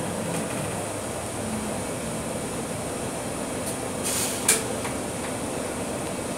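Inside a Scania K310UB city bus: steady cabin and running noise as it slows for a red light. About four seconds in there is a short air hiss that ends sharply.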